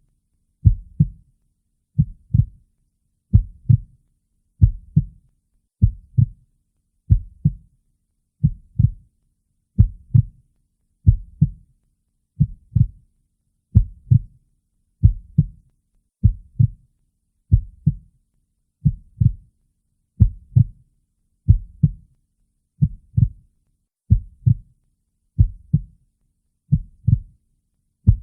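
Heartbeat, each beat a low double thump (lub-dub), repeating steadily at a slow rate of a little under one beat a second.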